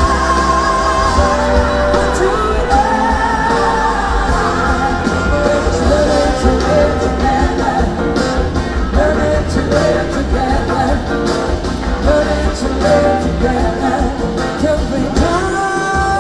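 Live band performance with a woman singing lead into a microphone over drums and electric guitar, loud and continuous.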